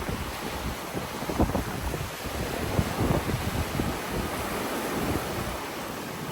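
Sea waves washing onto the shore, with wind buffeting the microphone in irregular low gusts.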